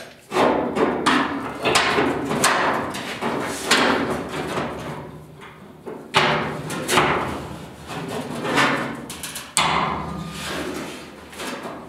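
Irregular metal clanks and knocks, about a dozen, as a steel angle iron and locking C-clamps are set against the sheet-steel inner box side of a pickup bed. The panel rings briefly after each knock.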